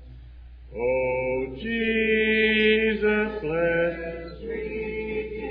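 Church congregation singing a cappella in parts, in long held notes, starting after a short pause about a second in. A steady low electrical hum runs underneath.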